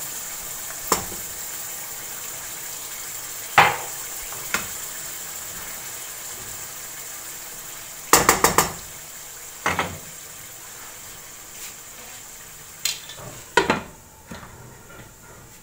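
Wooden spatula stirring simmering minced beef and tomatoes in a non-stick wok over a steady sizzling hiss, knocking sharply against the pan several times, with a quick run of taps about eight seconds in. Near the end a glass lid goes on with a clink and the hiss drops.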